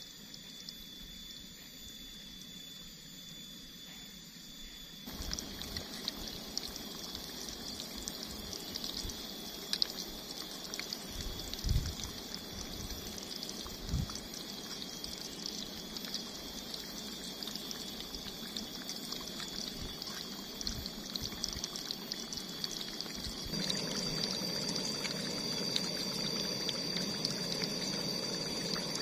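Battered tofu pieces frying in hot oil in a small camping pan: a steady crackling sizzle that starts about five seconds in, with a couple of soft knocks around the middle, and louder for the last few seconds.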